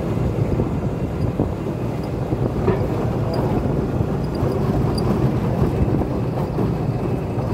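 Golf cart driving along a stamped-concrete path: a steady low rumble of its tyres and running gear.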